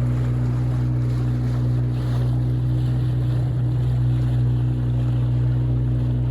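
Steady engine drone: an unchanging low hum with overtones.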